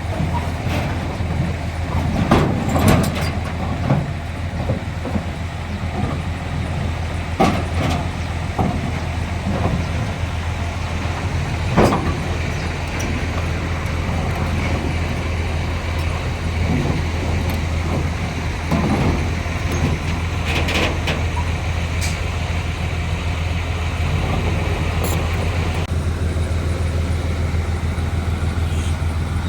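Diesel earthmoving machinery running steadily, with a low engine drone and irregular metallic clanks and squeals every few seconds.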